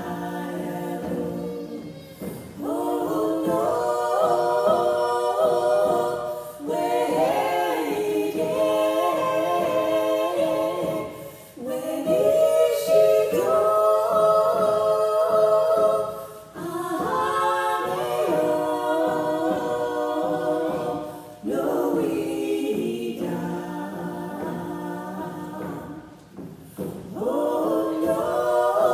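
Women's vocal trio singing a cappella in close harmony, in long held phrases of about four to five seconds, each followed by a short breath break.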